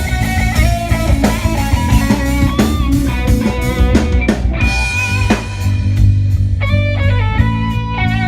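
Band playing live at a sound check: a guitar playing held and bending lead notes over bass and a drum kit.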